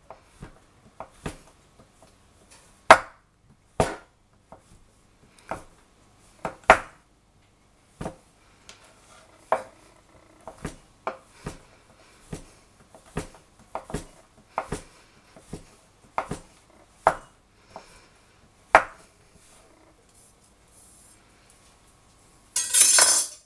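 Large kitchen knife chopping a bar of white chocolate on a wooden cutting board: irregular sharp knocks of the blade hitting the board, roughly one a second. Near the end comes a short, louder scraping as the chopped pieces are swept together on the board.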